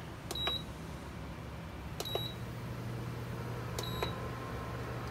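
Portable induction cooktop beeping three times, about two seconds apart, as its control buttons are pressed to switch it on and set the heat. A steady low hum from the cooker grows stronger after the second beep.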